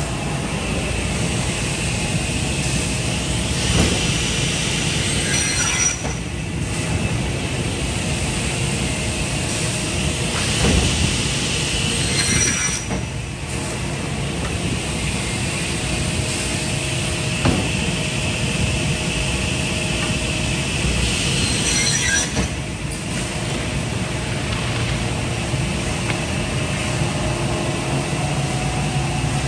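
Holzma HPP 350 beam saw running, cutting a plywood panel: a steady loud machine noise with a high blade whine that breaks off briefly three times between passes of the saw carriage.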